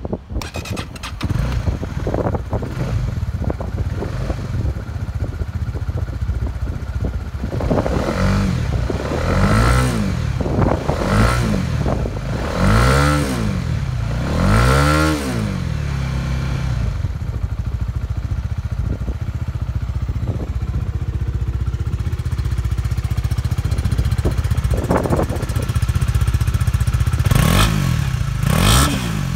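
Honda CB150R's single-cylinder engine starting up near the beginning and idling, then five quick throttle blips in a row, each rising and falling in pitch, before settling back to idle. Near the end two more short blips are heard from the exhaust muffler side.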